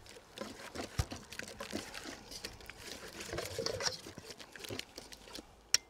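Wire whisk beating a wet boxty batter of grated raw potato, mash, flour and water in a stainless steel bowl: a quiet, quick wet patter. A few sharper clicks come near the end.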